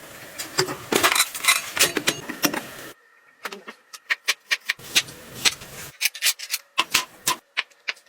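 Clicking and clinking of small hard items being handled, camp cookware and utensils, dense at first, then after a short pause about three seconds in, a run of separate sharper clicks.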